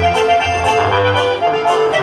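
Live regional Mexican band music played loud through a stage PA and heard from the crowd: sustained melody notes over a steady bass line.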